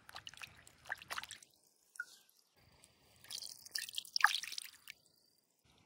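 Hands splashing and rubbing in shallow stream water, with water dripping, in two spells of splashing; the second, about three seconds in, is louder.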